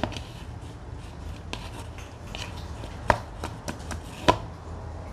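Hands kneading soft yeast dough in a plastic bowl: rubbing and pressing with scattered small clicks, and two sharp knocks about three and four seconds in.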